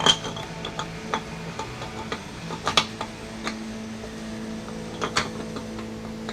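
Metal tools and transmission parts clinking and knocking against each other in scattered sharp clicks, about half a dozen, over a steady low hum.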